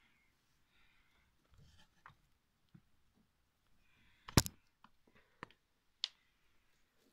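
A few scattered knocks and clicks against wood with faint rustling of litter, the loudest a single sharp knock about four seconds in.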